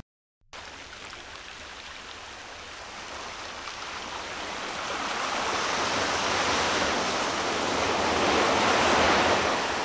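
A steady rushing noise with no tone in it, starting suddenly after a brief silence, swelling slowly over several seconds and easing off near the end.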